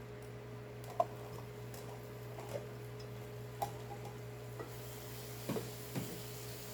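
A few light, irregular knocks of a spatula against a pan as potatoes are stirred, over a steady low hum. A faint sizzle comes in about two-thirds of the way through.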